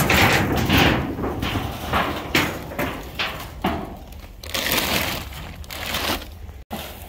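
Plastic tarp crinkling and rustling in an irregular series of bursts as it is handled and pulled back off dry grass, loudest in the first second.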